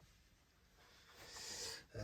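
Near silence, then a soft nasal in-breath lasting about half a second, taken just before speech resumes.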